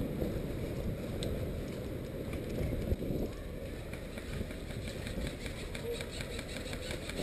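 Steady low rumble on the camera's microphone, with a faint click about a second in and a brief knock near three seconds.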